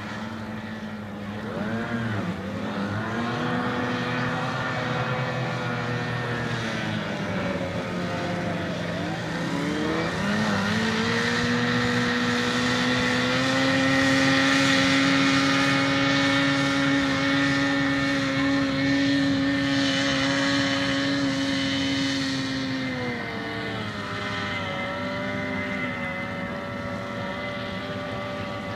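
Small racing hydroplane's engine running hard across the water. Its pitch rises and falls in the first few seconds, then holds a steady high whine that is loudest as the boat passes. The pitch drops about twenty-three seconds in as the engine backs off.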